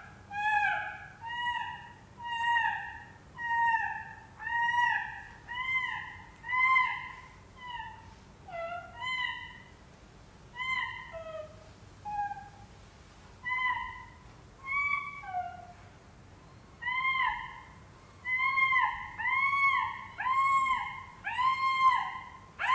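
A string of short, arching, meow-like wailing calls, about one a second, each rising and falling in pitch; in the last few seconds they come faster and louder.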